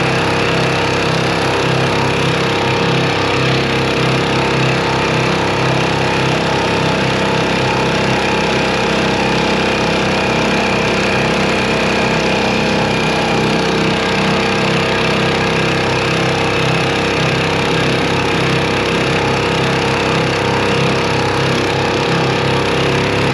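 A small 4 hp four-stroke outboard motor running steadily at speed, in gear and pushing the boat along.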